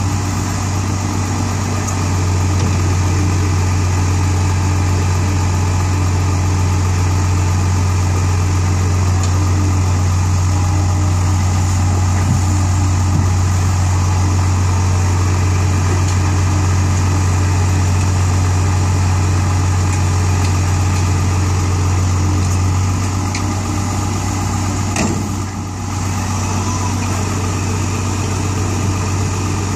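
Diesel engine of a Komatsu mini excavator running steadily under work as it digs and loads soil, with a dump truck's diesel engine running alongside; a deep steady drone. The engine note picks up about two seconds in and eases back near the end, with a brief dip.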